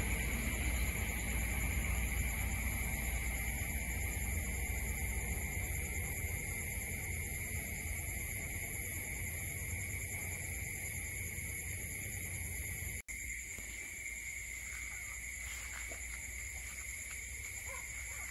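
Steady, unchanging high-pitched night insect chorus over a low rumble, breaking off for an instant about two-thirds of the way through.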